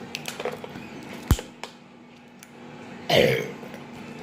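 A boy lets out one short, loud burp about three seconds in, after drinking juice. A few small clicks and a sharp low thump come before it, about a second in.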